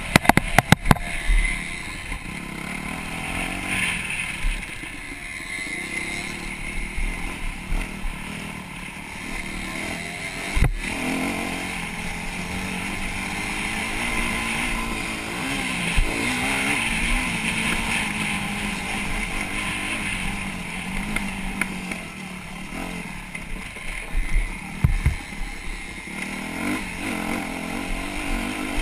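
Dirt bike engine running hard on a motocross track, its pitch rising and falling as the rider works the throttle, heard close up from a camera on the bike under a steady rush of noise. A cluster of sharp knocks comes about a second in and again near the end.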